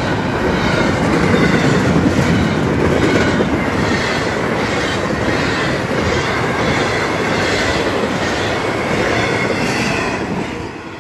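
Long intermodal freight train rolling past at speed, many of its well cars running empty: steady rumble of steel wheels on rail with a regular clicking from the wheels over the rail joints and a faint, steady, high wheel squeal. The noise eases somewhat near the end.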